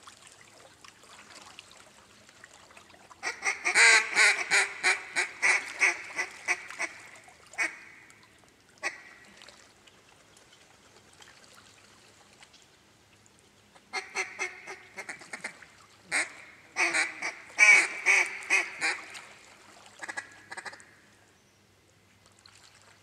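Mallard duck call blown in two long runs of quick, loud quacks, about five a second, a few seconds apart.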